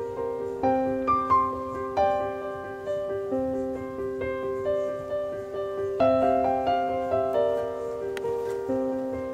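Background piano music: an unhurried run of single notes, struck about twice a second, over lower notes that ring on.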